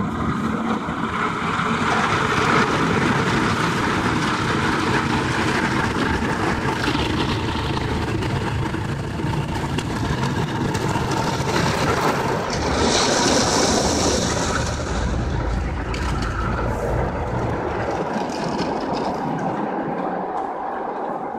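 An automatic car wash working over the car, heard from inside the cabin: a loud, steady rush and rumble, with a sharper hiss for a second or two about 13 seconds in.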